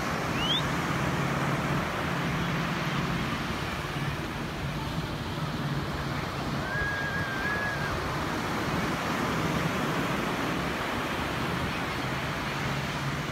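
Steady wash of ocean surf breaking on a sandy beach, with a low steady hum underneath. A short rising chirp sounds just after the start, and a brief high tone about seven seconds in.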